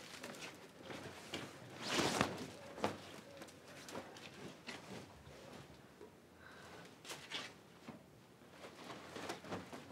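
Cloth rustling and laundry being handled, with scattered soft knocks and clicks and one louder swish about two seconds in.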